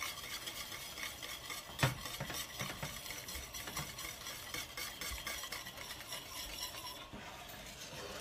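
Wire whisk stirring thick ube halaya (mashed purple yam cooked in milk and cream) in a stainless steel pan: a continuous fast scraping and ticking of the wires against the pan, with one sharper clink about two seconds in. The mixture is kept moving so it does not build pressure and spatter as it thickens.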